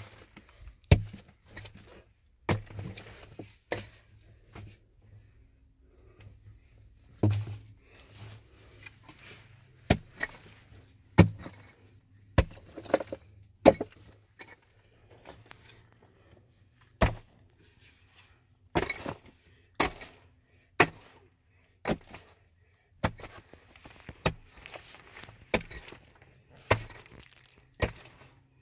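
Irregular series of sharp knocks and cracks, hard objects being struck or broken, sometimes two or three in quick succession and sometimes a second or more apart.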